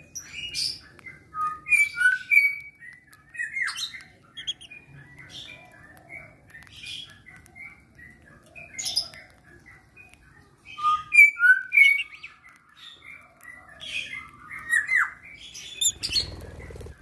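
Several lovebirds chirping and squawking in short, sharp, high calls at irregular intervals, some sliding down in pitch, as they feed from a hand. A low rumble comes in near the end.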